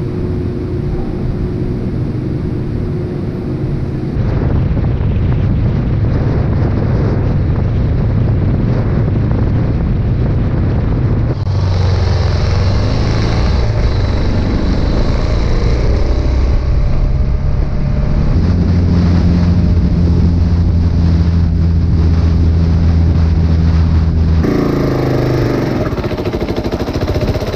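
Kawasaki KLR 650 single-cylinder motorcycle running under way, with wind rushing over the microphone. The engine note holds steady for stretches and changes suddenly a few times.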